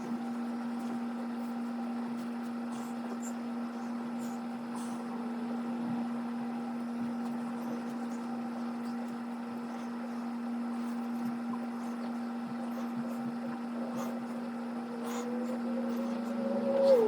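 A steady low hum with faint scattered clicks, and a wavering higher tone gliding in near the end.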